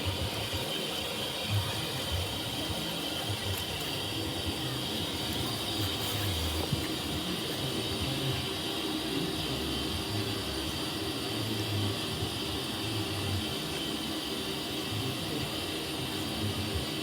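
Train running, a steady low rumble with a hiss over it.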